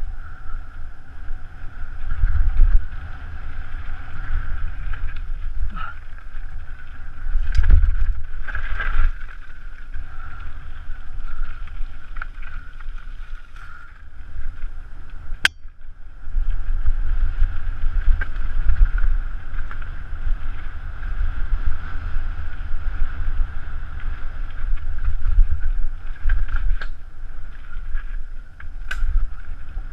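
Mountain bike descending a dirt singletrack: wind buffeting the microphone and tyres rumbling over the trail, with a few sharp clicks and rattles from the bike, the sharpest about halfway through.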